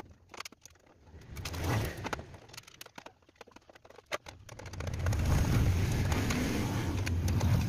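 Scattered metallic clicks and clinks of hand tools on a go-kart's steel steering parts being fitted, over a low engine-like rumble that swells briefly about two seconds in and again for the last few seconds, like motor vehicles passing.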